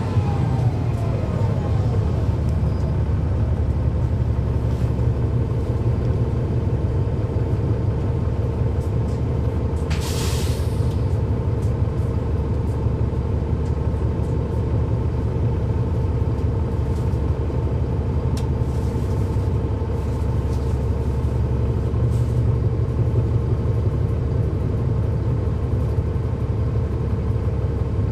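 Cummins ISL9 inline-six diesel engine of a NABI 40-SFW transit bus idling steadily, with a whine falling away in the first second. About ten seconds in comes one short burst of compressed-air hiss from the bus's air system.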